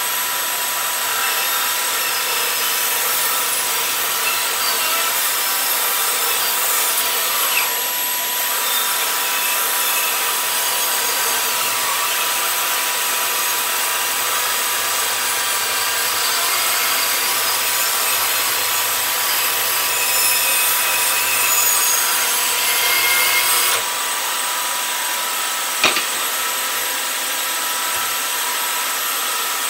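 Bandsaw running and cutting a wooden guitar body blank, the blade hissing steadily through the wood over a steady motor whine. The cutting noise thins about three-quarters through, and a single sharp knock comes near the end.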